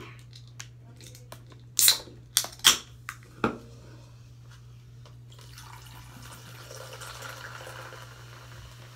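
An aluminium soda can opened, with a few sharp cracks and a hiss from the pull tab about two to three seconds in. From about five seconds in, carbonated soda is poured into a plastic cup with a faint, steady fizzing.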